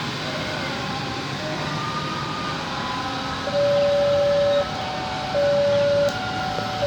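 Railway level crossing's electronic warning siren starts about halfway through, sounding a single steady tone in on-off pulses about a second long: two full pulses, with a third starting at the end. Traffic noise runs underneath.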